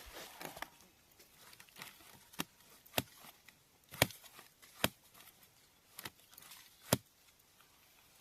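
Small wooden sticks being handled and fitted together, giving about half a dozen sharp, separate clicks and snaps at irregular intervals.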